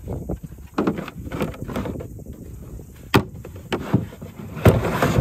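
Hard plastic chainsaw carrying case being closed: plastic knocking and shuffling, with several sharp clacks in the second half as the lid is pressed down and latched.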